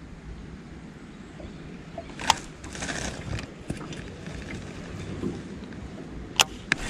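A baitcasting rod and reel being handled from a small boat: sharp clicks about two seconds in and again near the end, over a low steady rumble.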